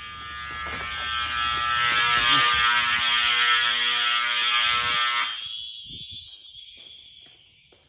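Fire alarm sounding a continuous harsh buzz with many overtones, growing louder over the first couple of seconds, then shutting off a little past five seconds in with a short fading tail.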